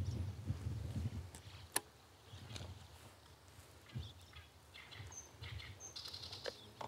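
Quiet open-air ambience: a low wind rumble on the microphone, loudest in the first second, with scattered faint clicks and one sharper click about two seconds in. Short high chirps come near the end.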